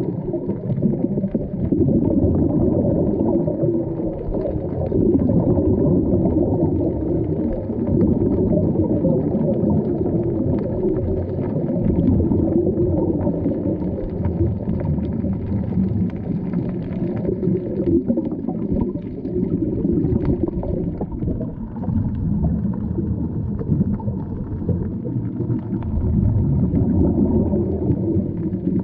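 Muffled underwater rumble and bubbling, recorded through a camera's waterproof housing, from scuba divers' exhaled air bubbles.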